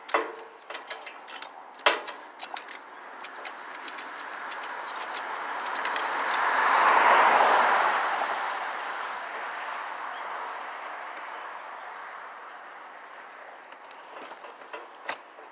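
Sharp metallic clicks and clinks from a lifting strap and rigging being handled on the hoisted lathe. Over them, a rushing noise swells for several seconds, peaks about halfway through, and slowly fades.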